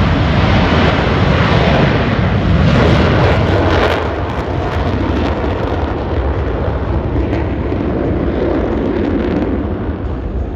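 Jet roar of a Blue Angels F/A-18 Super Hornet passing, loud and crackling through the first four seconds, then easing and slowly fading.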